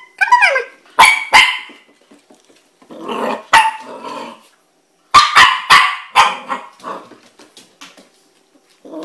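Puppy barking in short sharp barks: two about a second in, a low growl around three seconds, then a quick run of four or five barks after the five-second mark, trailing off into light clicks of claws on a hardwood floor.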